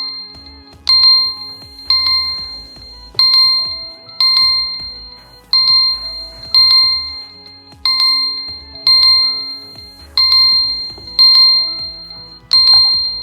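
Phone ringtone playing: a high, bright bell-like chime struck about once a second, each note fading before the next, over a soft low musical backing.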